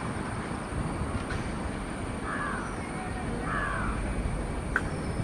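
A crow caws twice, about two and three and a half seconds in, over the steady low rumble of a passenger train's coaches running away along the rails. There is a single sharp click near the end.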